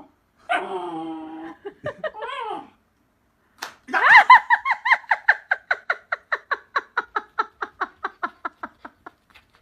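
A few short vocal sounds with bending pitch, then a long run of quick laughing pulses, about five a second, that starts loud and trails off over several seconds: a person laughing hard.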